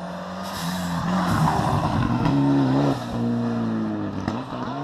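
Rally car passing at speed, its engine note shifting up and down and loudest between about one and three seconds in, then dropping in pitch as it goes away.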